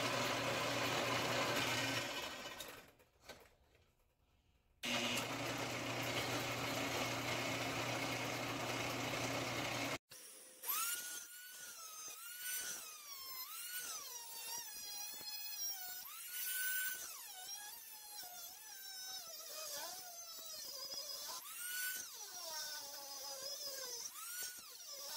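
A band saw motor running with a steady hum that drops out for about three seconds and comes back. About ten seconds in it gives way to a die grinder with a cutoff wheel cutting steel, its whine repeatedly sagging and rising in pitch as the wheel bites and frees.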